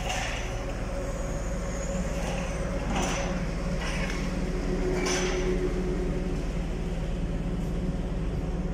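Still electric forklift driving through a warehouse with a steady mechanical hum, and three brief sharp knocks or clanks as it rolls out across the steel dock leveler: one at the start, one about 3 s in and one about 5 s in.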